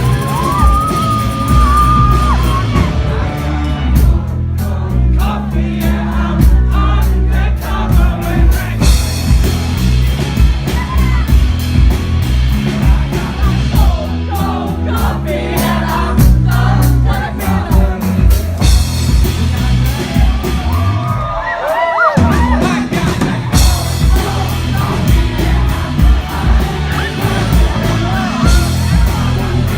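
Live band performing a song: a singer over a steady bass and drum beat. About two-thirds of the way through, the low end drops out for a moment, then the full band comes back in.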